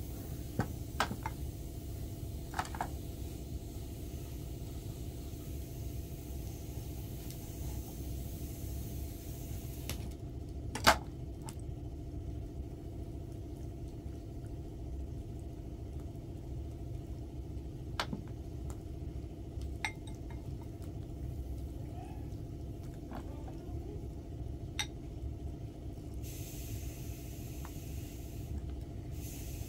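A utensil clinking now and then against a glass bowl and scraping on a serving tray while fish is basted, over a low steady rumble; one sharp clink about eleven seconds in is the loudest.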